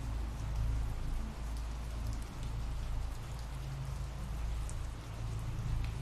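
Ambient rain sound effect: steady rain with scattered small drop ticks, over a low steady rumble.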